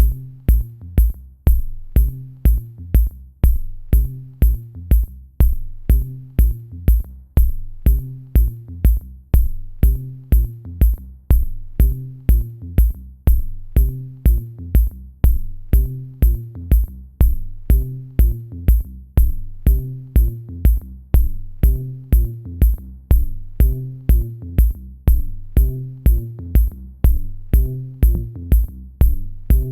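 Electronic music with a drum-machine beat: a steady kick about twice a second, a repeating low bass line and a crisp high tick on every beat.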